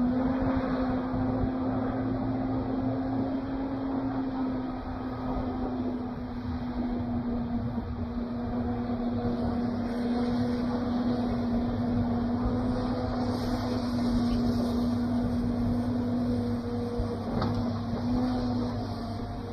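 Diesel engine of a John Deere knuckleboom log loader idling, a steady unchanging hum with a constant low tone.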